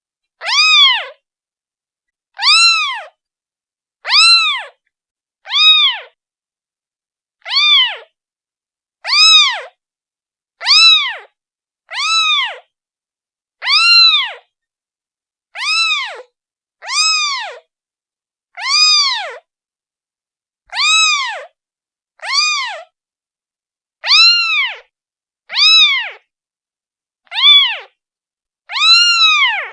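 A day-old newborn kitten meowing over and over, calling for its mother. Short, high meows come about every second and a half, each rising and then falling in pitch.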